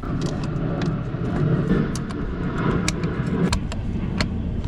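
A car running, a steady low rumble with a few sharp clicks scattered through it.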